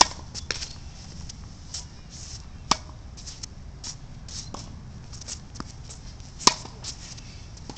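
Tennis ball struck by a racket: three loud, sharp pops a few seconds apart, with fainter taps between them, over a low steady rumble.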